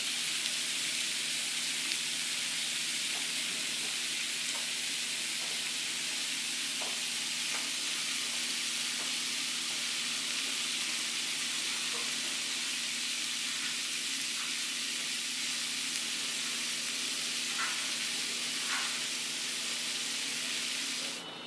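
Pieces of hagfish sizzling on a hot cast-iron platter: a steady hiss with a few faint pops, cutting off just before the end.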